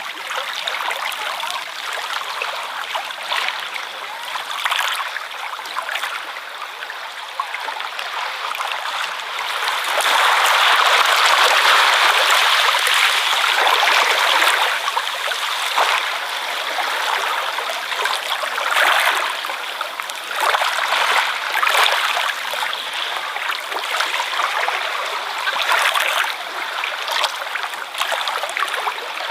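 Ocean waves washing over the shore in a continuous rush of water that rises and falls. It swells louder about ten seconds in.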